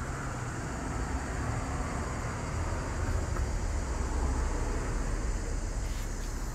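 Steady low outdoor background rumble on a phone microphone, with a few faint ticks near the end.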